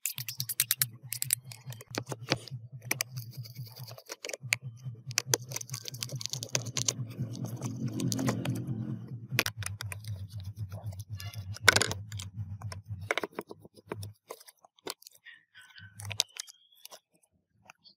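Rapid clicks and taps of hard plastic laptop parts being handled, with a low steady motor hum underneath that cuts out about 13 seconds in and comes back briefly near the end.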